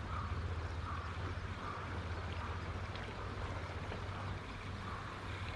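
Shimano Twin Power 4000XG spinning reel being cranked steadily to retrieve a lure, a soft whir coming round about once every three-quarters of a second, over a steady low rumble.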